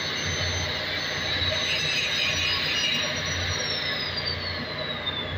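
Electric arc welding on a cracked main-engine exhaust valve housing: a steady, dense crackling hiss over a low throbbing hum, with a faint high tone sliding slowly down in pitch in the second half.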